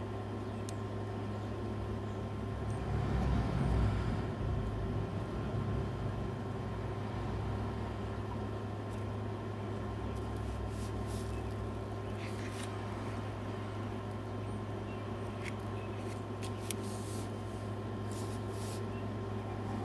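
Steady low mechanical hum that swells briefly about three seconds in, with faint scratches of a graphite pencil on paper over it in the second half.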